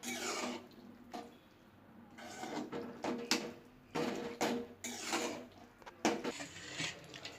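A spoon stirring and scraping through chutney in a cooking pan, in irregular strokes about once a second, mixing in the spice powder.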